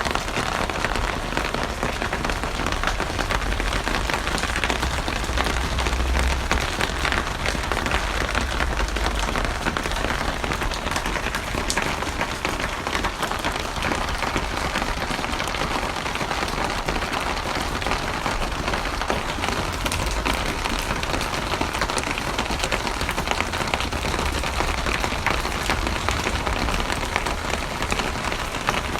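Steady heavy rain falling on a surface, a dense patter of drops with a low rumble underneath.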